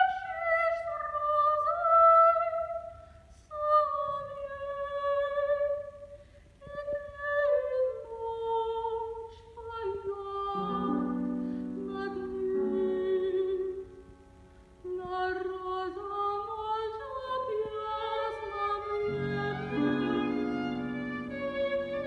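Soprano singing a slow Russian art song with a violin playing a line alongside, broken by short pauses between phrases. Lower sustained notes join the texture about halfway through and again near the end.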